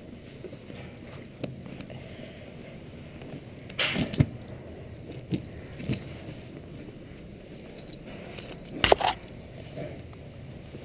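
Handling noise from a body-worn camera rubbing and knocking against a leather saddle and a jacket: scattered clicks and rustles over a steady low hiss, with two louder scrapes about four and nine seconds in.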